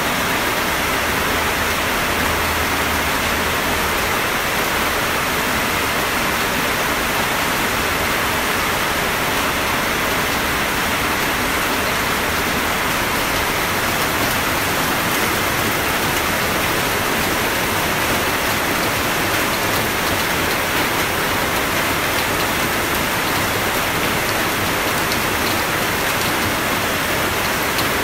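Steady rain falling: an even, unbroken wash of rain noise at a constant level.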